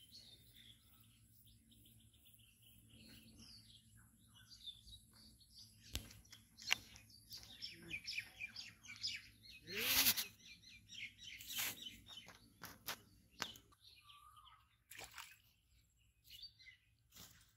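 Small birds chirping and twittering, with a few sharp clicks and one brief, louder rustle a little past the middle.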